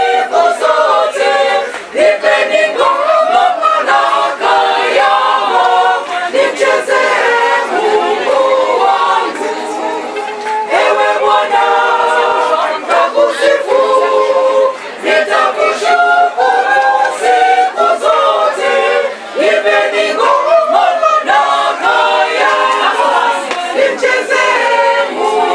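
A church choir singing in Swahili, several voices together in a steady flowing song.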